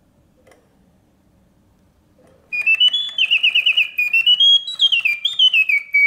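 Vintage 1966 Reuge singing bird cage: after a near-silent pause with one faint click, the automaton bird's bellows-driven whistle starts up about two and a half seconds in, a warbling song of rising and falling notes with a quick trill. The mechanism coming back from its pause is the sign that the movement and bellows work as they should.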